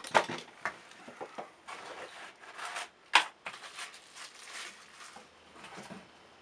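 Food and utensils being handled on a wooden table: a knife, paper and packaging rustle and scrape, with scattered clicks and knocks. The sharpest knock comes about three seconds in, and another just after the start.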